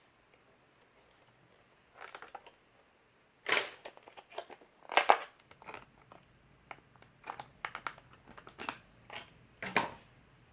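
Irregular clicks and crinkling rustles from hand-handling of objects, in short bunches with quiet gaps, the loudest about a third and halfway in.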